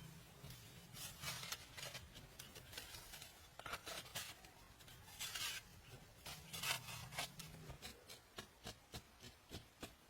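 Hand work on wood and earth: several short scraping, rustling strokes among sharp taps, then a run of evenly spaced taps, about three a second, near the end.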